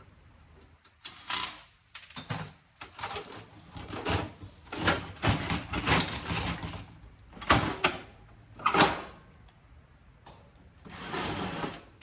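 Sheet-metal casing and parts of a DVD home theater receiver clattering and scraping as it is pried apart by hand: a run of irregular knocks and rattles, with a longer scrape near the end.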